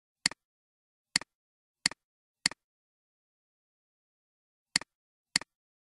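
Computer mouse button clicked six times, each click a sharp press followed a split second later by a softer release: four clicks in the first half, a pause, then two more near the end.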